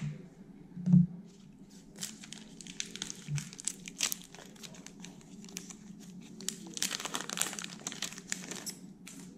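A foil trading-card pack wrapper is crinkled and torn in two stretches of crackling. A soft thump comes about a second in.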